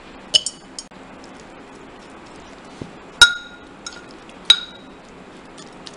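Metal spoon clinking against a ceramic pickle jar as mango pickle is spooned in: a couple of light taps in the first second, then two loud ringing clinks a little over a second apart.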